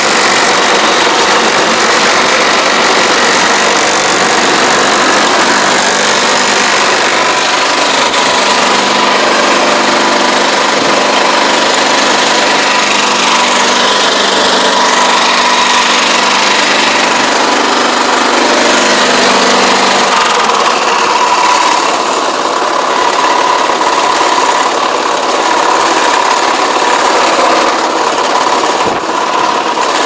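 Small petrol engine of a walk-behind power pesticide sprayer running steadily while spraying, its note changing about two-thirds of the way through.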